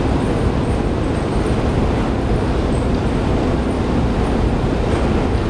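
A long subway escalator running during the ride down: a steady, loud low rumble with no breaks.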